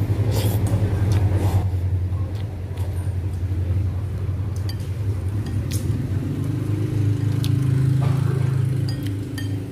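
A steady low hum, like an engine running, fills the background and swells briefly about seven seconds in. A few light clinks of a metal spoon and chopsticks against a bowl of noodles sound over it.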